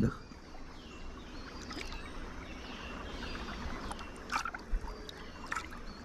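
Jaguar lapping water from a river: faint soft water sounds, with a few short splashy laps in the second half.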